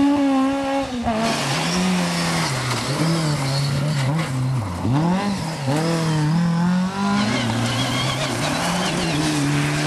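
Rally car engines at high revs through corners, their pitch rising and falling repeatedly with throttle lifts and gear changes. The sound changes character about a second in and again near the end as different cars pass.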